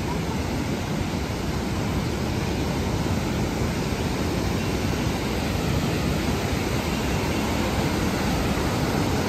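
A mountain river rushing over rocks: a loud, steady roar of water.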